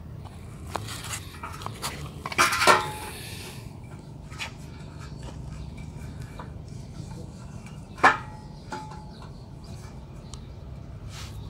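Metal clanks and knocks from steel truss pieces being handled and set down: a loud cluster with a short ring about two and a half seconds in, a single sharp clank about eight seconds in, and small taps between, over a low steady hum.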